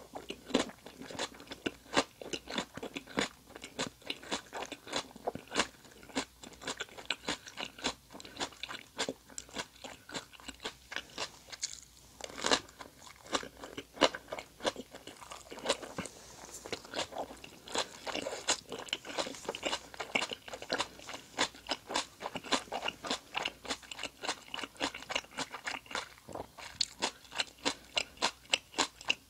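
Close-miked chewing of crunchy raw vegetables: a steady run of crisp crunches, about two to three a second, with wet mouth sounds between them.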